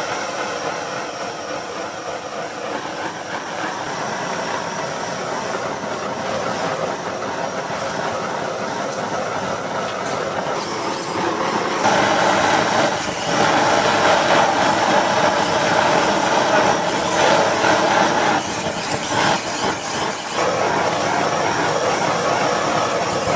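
Steady hiss of food cooking at a street-food stall, growing louder about twelve seconds in.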